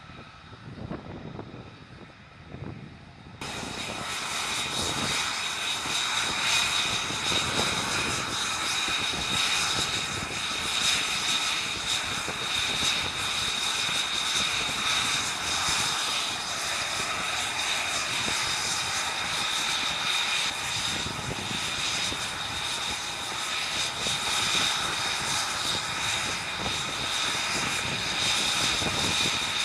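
Aircraft engine running loud and steady with a high whine, starting abruptly about three seconds in after a quieter opening.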